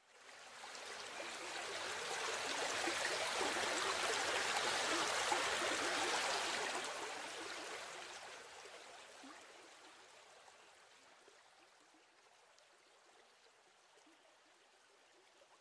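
Rushing river water, a steady hiss with no pitch. It fades in over the first few seconds, is loudest around the middle, and fades away by about two-thirds of the way through.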